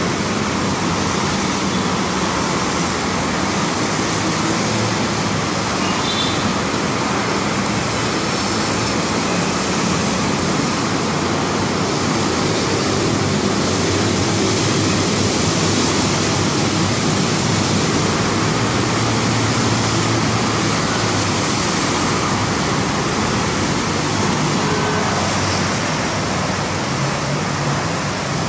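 Steady rush of road traffic, a continuous blend of passing cars.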